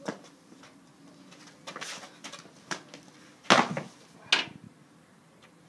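Scuffling and thuds of a person being thrown down onto garden paving stones. The loudest hit comes about three and a half seconds in, and a second, smaller one follows just under a second later.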